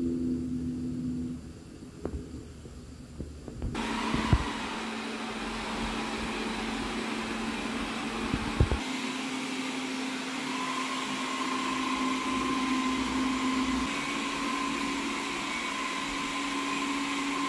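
Wyze robot vacuum's suction fan running steadily, first at its quiet setting and then, near the end, at strong. For the first four seconds only the quieter room sound with a low hum is heard, before the vacuum starts suddenly. A few short knocks come along the way, and the pitch of its hum shifts a few times as the suction level changes.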